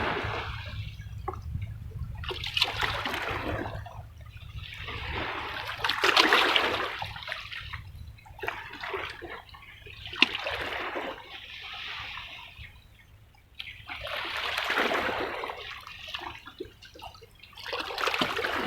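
Small sea waves washing and splashing against the rocks of a breakwater, one surge swelling and draining away every few seconds.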